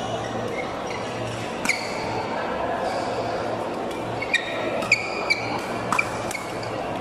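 Badminton rackets striking the shuttlecock during a doubles rally: one sharp hit a little under two seconds in, then four quick hits about half a second apart between about four and six seconds in, over the background of a large sports hall.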